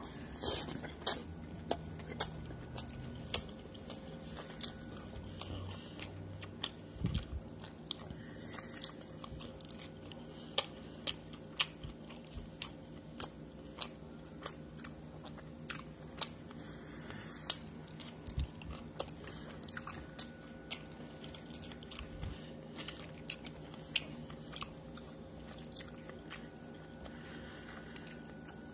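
A person eating street tacos and pickled vegetables close to the microphone: chewing and biting, with many sharp, crunchy clicks spread irregularly through the chewing.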